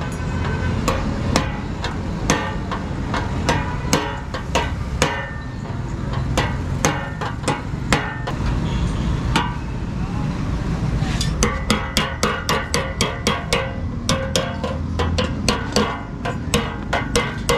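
Hand hammer striking metal radiator parts, each blow ringing briefly. The strikes come irregularly at first, then about two-thirds of the way through quicken to an even three or four a second. A low rumble runs under the first half.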